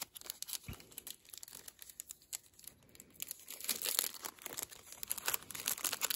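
Plastic packaging crinkling as it is handled, with scattered light clicks that get busier in the second half.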